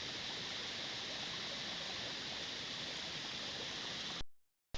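Waterfall and stream water rushing steadily, an even hiss. It cuts off abruptly with a click near the end, where the recording is paused.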